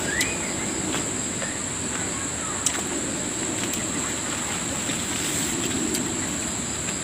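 Insects droning steadily at a high pitch over a constant hiss, with a few faint clicks, one sharper a little under three seconds in.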